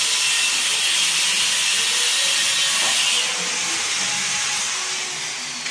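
A loud, steady hiss, easing off about three seconds in.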